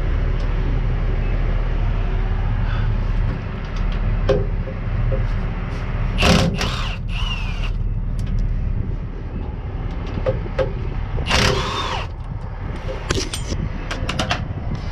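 Truck engine idling with a steady low rumble. There are two loud rushing bursts, one about six seconds in and one about eleven seconds in, and a few sharp clicks near the end.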